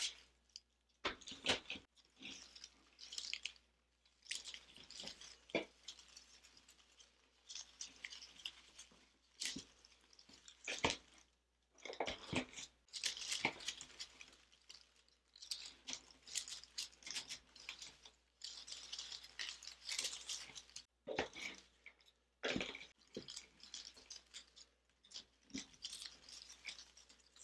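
Artificial foliage and berry stems rustling and crackling as they are handled and pushed into a grapevine wreath, in irregular short bursts with occasional small clicks.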